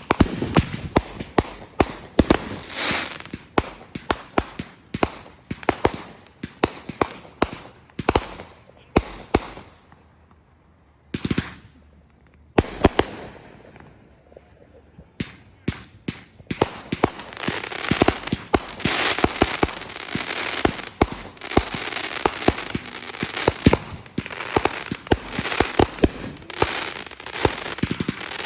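Fireworks going off in quick succession: many sharp bangs and crackling. There is a lull of a few seconds about ten seconds in, broken by one burst, then a dense stretch of crackling bangs.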